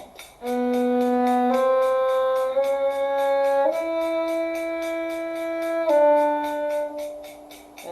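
A bowed string instrument playing five slow, sustained notes in a shifting drill. The pitch steps up through about B, C and C-sharp to a long E, then drops to D.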